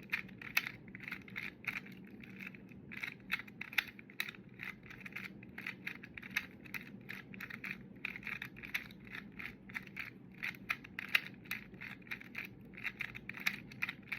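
2x2 Rubik's cube being turned fast with finger tricks during a timed solve: a rapid run of plastic clicks as the layers snap round, several turns a second, with a few brief pauses.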